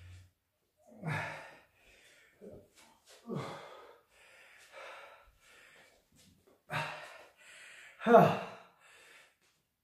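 A man breathing hard and gasping, with about six short, irregular, forceful breaths, the loudest near the end with some voice in it. He is out of breath from exhaustion after a hard set of leg exercises.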